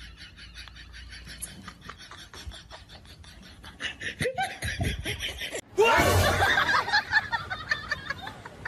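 A person laughing, starting suddenly about six seconds in and the loudest thing here. Before it there are only faint soft sounds.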